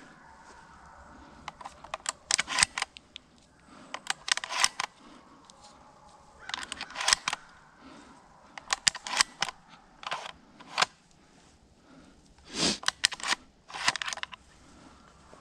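Scattered bursts of rustling and sharp clicks close to the microphone, about eight clusters spread irregularly: a hunter's small movements while he stands with his shotgun, clothing and gear brushing and knocking near the camera.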